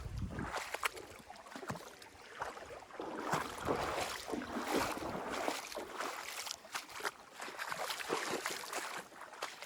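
Footsteps wading and splashing through a shallow, rocky stream, with irregular sloshes and knocks of feet on stones over the running water.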